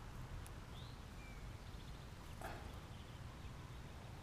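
Faint outdoor ambience: a few short, high bird chirps and one brief falling whistle over a steady low rumble, with a single soft scuff about halfway through.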